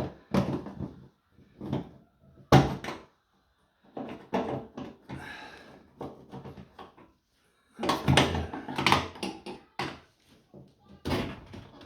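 A washing machine being handled while it fails to drain: irregular clunks, knocks and rattles, door-like, about a dozen sharp knocks spread unevenly, with the loudest around two and a half seconds in and again around eight to nine seconds in.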